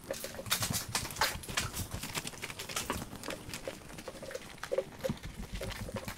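Handling noise from a hand car wash: a wash bucket being moved and a soapy wash mitt worked in it and on the car, heard as a run of irregular knocks, taps and wet splashes.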